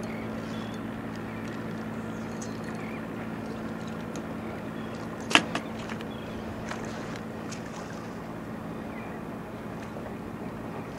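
Steady low hum, made of a few even tones, with one sharp click about five seconds in.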